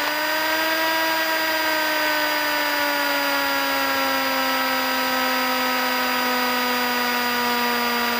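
Cessna 150's four-cylinder Continental O-200 engine and propeller running at taxi power, heard from the cockpit. Its note peaks about a second in after a touch of throttle, then slowly drops as the power is eased back. A faint steady high whine sits behind it.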